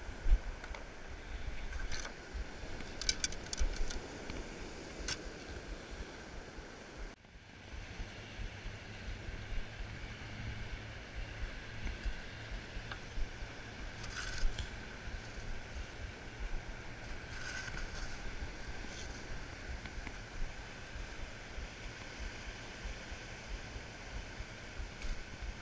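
Wind buffeting the microphone, with a faint steady high tone underneath and a few short sharp sounds, some about 2 to 5 seconds in and more around 14 and 18 seconds. The sound drops out briefly about 7 seconds in.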